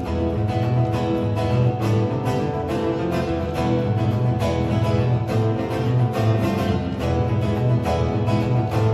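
Two acoustic guitars played together as an instrumental duet, with a steady rhythm of strummed strokes under the sustained notes.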